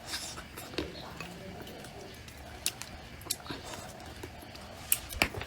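Close-up eating sounds: chewing and mouth smacks with scattered sharp clicks, the loudest pair near the end.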